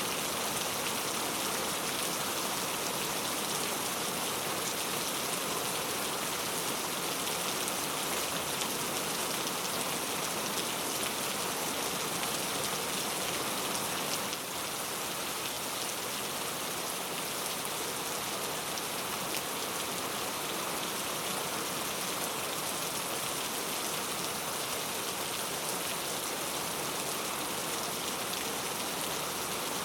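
Steady rain falling on a surface, an even dense hiss of many drops with no distinct single drips. It drops slightly in level about halfway through.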